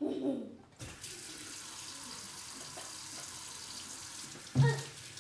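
Water running from a tap into a sink: it is turned on suddenly about a second in and then runs steadily. A short loud sound breaks in near the end.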